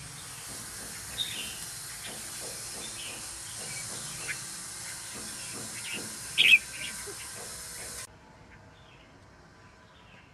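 Red-whiskered bulbuls in an aviary giving short, scattered calls, the loudest about six and a half seconds in, over a steady hiss that cuts off suddenly about eight seconds in.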